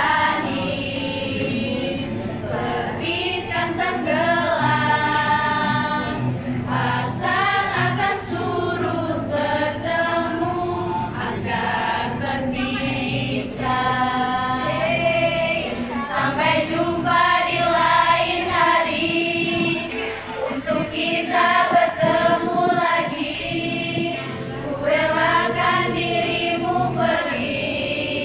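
A group of young women singing a song together, voices held on long notes in sung phrases.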